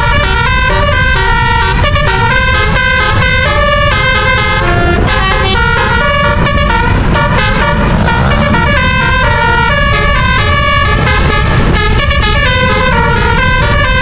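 Tour bus telolet musical air horns, a set of twelve roof-mounted trumpets, playing a quick melody of changing notes without a break, over steady low road and engine noise.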